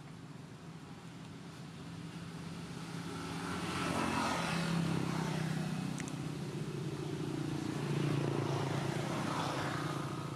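A motor engine running past, its hum swelling to its loudest about four seconds in, easing, then swelling again near eight seconds.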